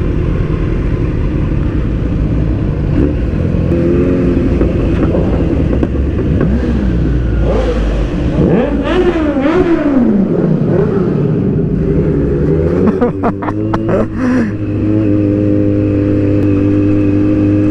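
Kawasaki motorcycle engine, heard from the rider's seat at low speed. Its revs rise and fall several times through the middle as the rider pulls away and changes gear, then hold steady near the end.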